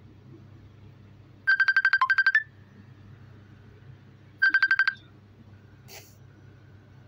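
Electronic ringtone trilling: a high, rapidly pulsing beep lasting about a second, then a shorter half-second burst about three seconds later.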